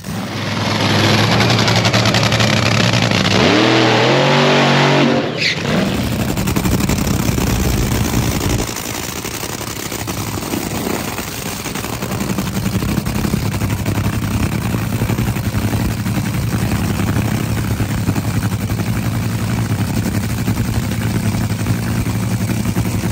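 Top Fuel dragster's supercharged nitromethane V8 revving hard for about five seconds, its pitch rising near the end, then running on at a lower, pulsing idle.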